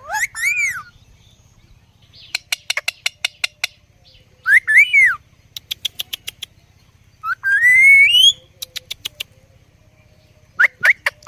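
Indian ringneck parrot calling: four short, shrill whistled calls that arch or rise in pitch. Between the calls come quick runs of sharp clicks, about six to eight a second.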